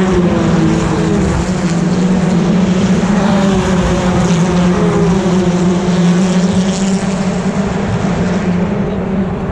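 British Touring Car Championship race cars' turbocharged four-cylinder engines running loud at racing speed as the cars pass at trackside, the engine pitch sliding down and back up as they go by.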